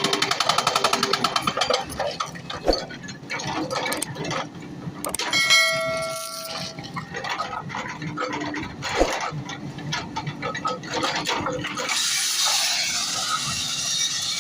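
A breaker hammer striking rapid, evenly spaced blows for about two seconds, then stopping. Scattered knocks follow, with a ringing metallic clang about five seconds in and a hiss near the end.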